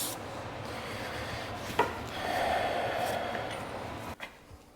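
Hand work on the vehicle: rubbing and scraping of metal parts and tools, with one sharp knock about two seconds in.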